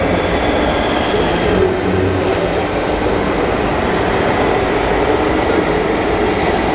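1/14 scale radio-controlled tractor truck driving slowly past, with a steady engine-like rumble.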